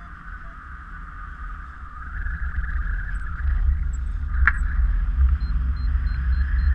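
Wind rushing over an action camera's microphone in paraglider flight: a steady low rumble that grows louder about two seconds in, with one sharp click a little past halfway.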